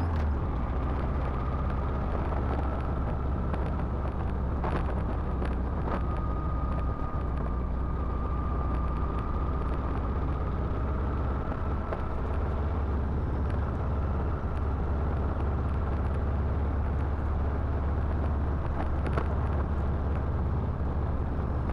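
A Victory Vision Tour motorcycle riding at a steady pace, heard from a microphone inside the rider's helmet: a continuous low engine rumble under even wind and road noise, with a faint wavering whine.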